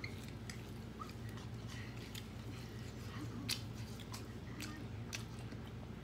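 A person eating close to the microphone: chewing with irregular crisp crunches and clicks, the loudest about three and a half seconds in, over a steady low hum.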